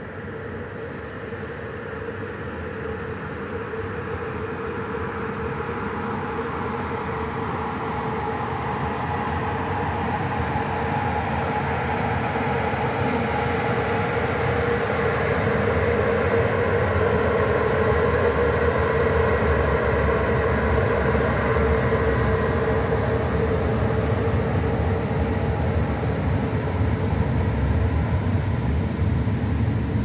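Freight train rolling past: an electric locomotive followed by container and box wagons, a rumble that grows steadily louder over the first half and then holds, with a steady whine over it.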